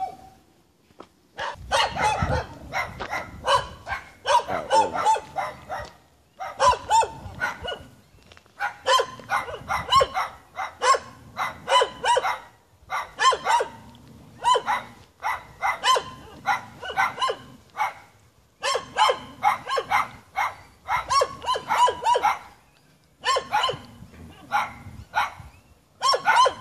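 Dogs barking at the person filming, in fast runs of sharp barks, about two to three a second, broken by a few short pauses.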